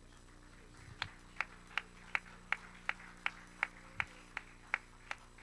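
Hands clapping in a steady, even rhythm: about a dozen sharp claps, close to three a second, starting about a second in and stopping shortly before the end.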